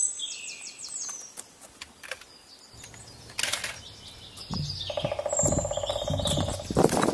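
Songbirds chirping in the woods early on, then the knocks, scuffs and rustle of a hiker climbing over rock boulders with trekking poles, growing louder in the second half.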